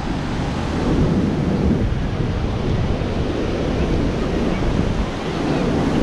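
Atlantic surf washing onto a beach, with wind buffeting the microphone in a steady, rumbling noise.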